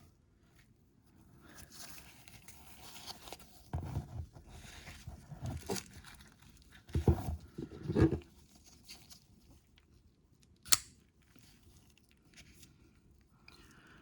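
Handling of a pocket knife's case and its contents: rustling and scraping, several dull knocks, and one sharp click about eleven seconds in.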